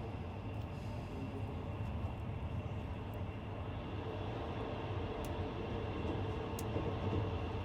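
Steady low rumble with a faint constant hum over it and a few light clicks, like a vehicle or train heard while moving.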